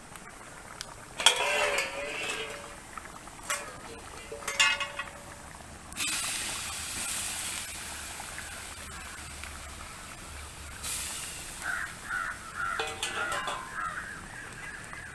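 Crows cawing in short calls, a few at a time. About six seconds in, a steady hiss starts suddenly and slowly fades.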